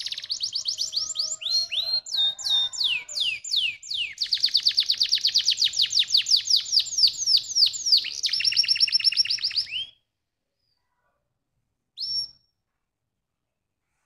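Domestic canary singing: a fast song of trilled phrases, each a rapid run of repeated down-slurred high notes, the phrase changing every second or two. The song stops about ten seconds in, and a single short chirp follows near the end.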